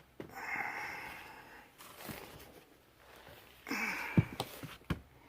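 R22 refrigerant hissing out of a hole in the furnace's evaporator coil where the refrigerant lines enter, heard in two surges of about a second and a half and under a second. A sharp knock about four seconds in and a lighter one shortly after.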